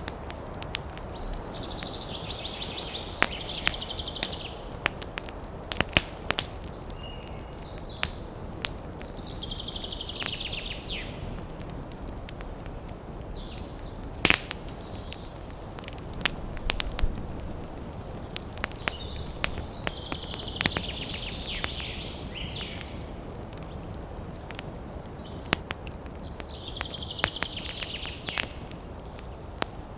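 Campfire crackling and popping with many sharp snaps, over a steady rush of wind through trees. A high chattering animal call comes and goes four times, each lasting about two seconds.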